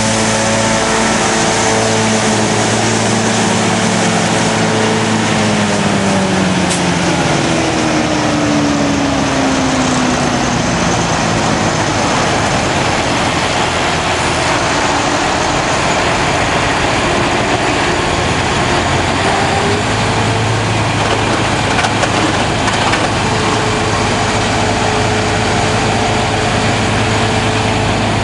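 Heavy farm machinery working in the field: a large engine runs under a loud, steady rush of noise. Its pitch slides down over the first dozen seconds, then holds steady.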